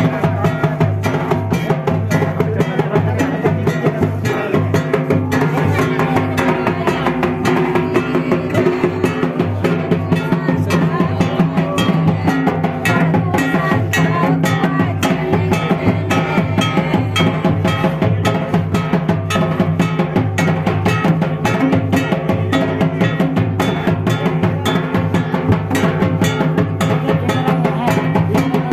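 Dance music driven by a hand-played barrel drum: quick, even drum strokes over a sustained melodic line.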